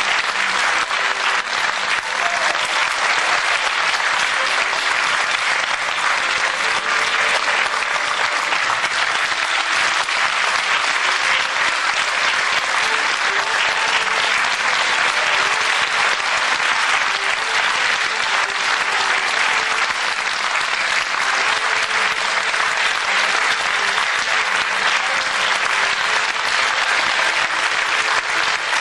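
Theatre audience applauding steadily, a dense unbroken clapping that neither swells nor fades.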